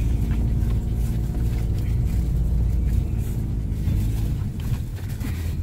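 Steady low rumble of a Toyota car's engine and road noise heard from inside the cabin while driving slowly, the deepest part easing slightly about four seconds in.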